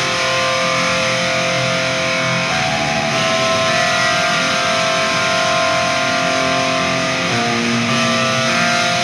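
Music: a sustained passage of distorted electric guitar chords, the chords changing every couple of seconds, with no vocals or drums.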